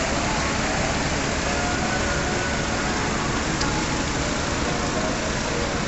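Engine-driven inflator fans running at a steady pitch, blowing air into hot air balloon envelopes during inflation, with a constant rushing noise and a faint hum.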